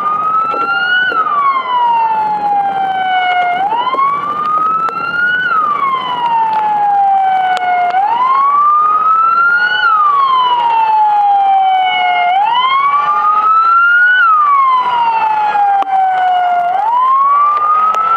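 Fire-service emergency-vehicle siren in slow wail mode. Its pitch rises over about two seconds and falls more slowly, repeating about every four and a half seconds, about four times.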